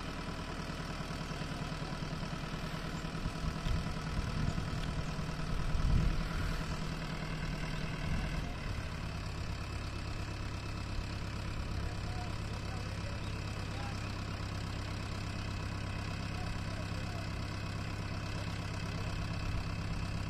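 Farm tractor's diesel engine running steadily while its hydraulic tipping trolley raises the bed and dumps a load of soil. There is some louder, uneven rumbling in the first half, strongest about six seconds in. From about nine seconds in the engine settles into a steadier hum.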